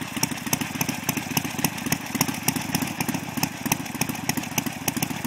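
1967 Harley-Davidson XLCH Ironhead Sportster's air-cooled V-twin idling steadily, with a sharp tick repeating about five times a second over its beat.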